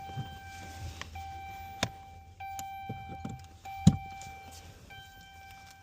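Electronic warning tone sounding in repeated stretches of about a second each with short breaks, during the check-engine-light reset. A few sharp clicks fall between the tones, the loudest about four seconds in.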